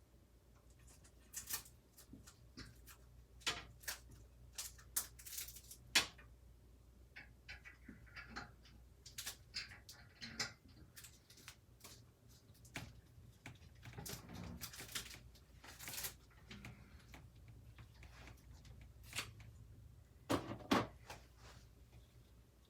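Scattered small clicks, taps and knocks of hard parts being handled and fitted on a PC case, with a scraping stretch about two thirds of the way through and the loudest knocks about six seconds in and near the end.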